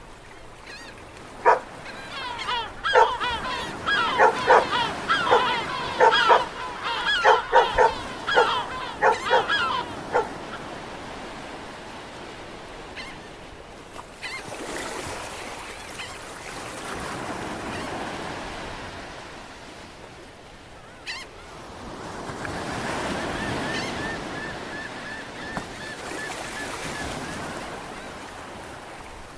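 A dog barking repeatedly, many short barks in quick succession for about eight seconds. Then waves wash in and out on a shore.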